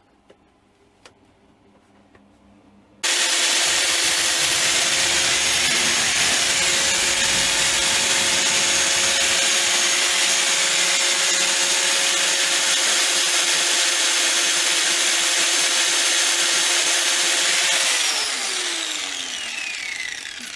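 Electric angle grinder starts about three seconds in and runs at a steady high whine while grinding clean small steel washers. Near the end it is switched off and winds down, its pitch falling.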